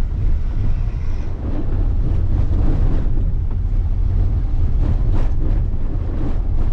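Steady low rumble of a moving vehicle, heard from inside, with wind noise on the microphone.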